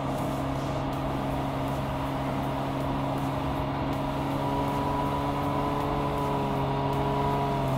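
Porsche 718 Boxster GTS 4.0's 4.0-litre flat-six engine running at a steady cruise: a constant drone whose pitch drifts only slightly.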